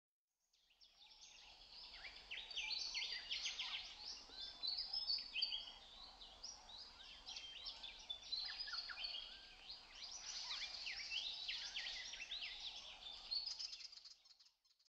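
A chorus of songbirds: many overlapping chirps, trills and quick sweeps, fading in just after the start and fading out near the end.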